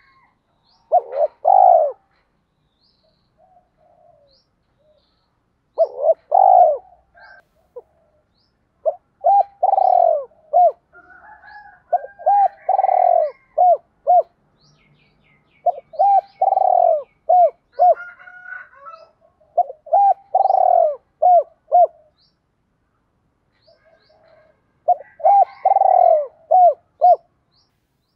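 Spotted dove cooing: repeated phrases of three to five short coo notes, a phrase every few seconds with a couple of longer pauses. This is a decoy dove's song, used to provoke rival doves.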